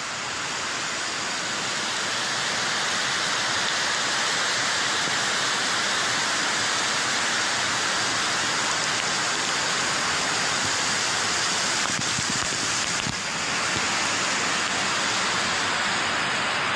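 Heavy waterfall crashing down and throwing spray, a steady dense hiss of falling water that eases briefly about 13 seconds in.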